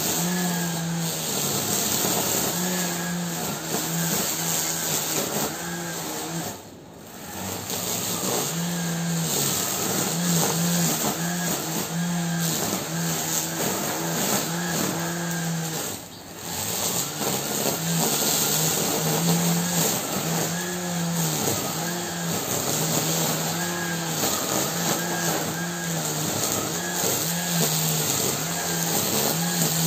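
Gardena grass trimmer running steadily as it cuts grass, its motor humming with a shifting pitch over the hiss of the spinning cutting head. It eases off briefly twice, about a third of the way in and near the middle, then picks up again.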